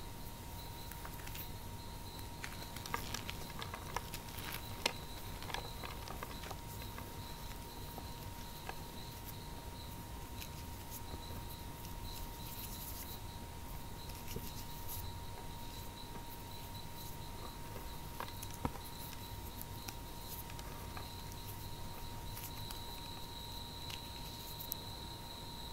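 Dry cornstarch clumps crumbled and crushed by hand: a soft, scattered crunching and crackling, busiest in the first several seconds, with a few sharper ticks. A faint steady high tone runs underneath.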